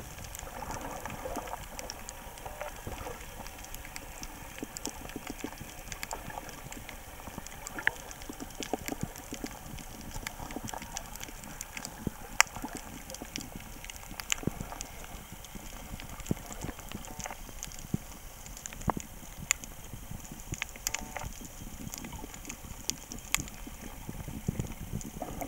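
Underwater coral-reef ambience: irregular sharp clicks and crackles over a steady hiss, with a few louder single clicks scattered through.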